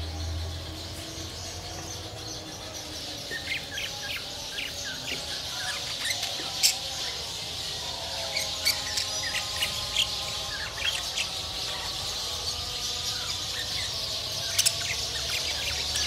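A flock of budgerigars chattering: many quick high chirps and warbles overlapping without a break, with a few louder sharp calls.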